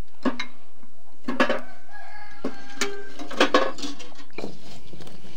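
A rooster crowing, with a few short, sharp knocks.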